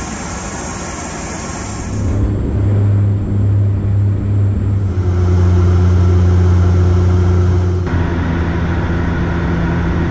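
Dash 8 Q400 turboprop's engines and propellers heard from inside the cabin: a loud, steady low drone at the propeller rate, in short clips that cut about two, five and eight seconds in. The first couple of seconds are steady airport apron noise with a high hiss.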